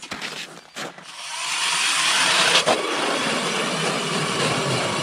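Power ice auger drilling a hole through lake ice: it builds up about a second in, then runs steadily as it cuts.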